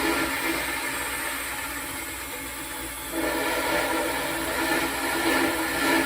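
Hyper Tough 20-volt cordless drill spinning a sanding disc against a surface: a steady motor hum with a rough sanding hiss, which gets louder about three seconds in.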